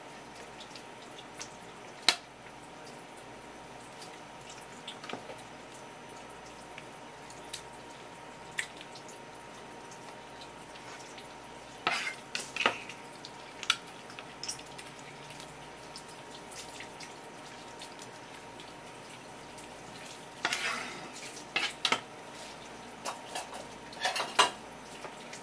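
Knife and hands working bigfin reef squid tentacles on a wooden cutting board: scattered taps and knocks on the board, a sharp knock about two seconds in and clusters of them later, over a faint steady hum.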